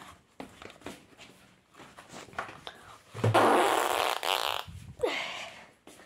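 A loud fart noise lasting about a second and a half, starting about three seconds in, standing for a character doing number 2. Light handling knocks come before it.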